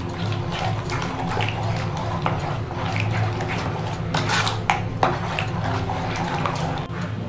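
A metal spoon stirring thin, wet flour-and-vegetable batter in a plastic bowl: continuous sloshing and squelching, with a few sharper clicks of the spoon against the bowl about four to five seconds in.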